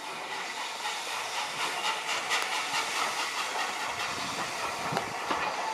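Steam locomotive No. 850 Lord Nelson, a Southern Railway Lord Nelson class 4-6-0, running slowly in with a steady hiss of steam. A few metallic clanks from the wheels on the track come in about two seconds in and near the end, and the sound grows louder as the engine approaches.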